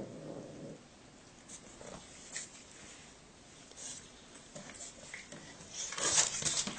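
A cat's low vocal sound trails off within the first second. Then come faint scuffles, and near the end a louder spell of rustling and scuffling as the cat moves and is handled on a wooden floor.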